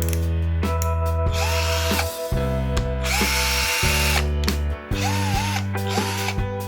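Cordless 18 V hammer drill running in two short bursts of about a second each, over background music.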